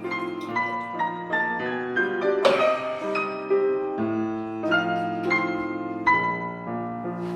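Background music: a piano plays a slow melody of single notes over held chords, with a fuller chord struck about two and a half seconds in.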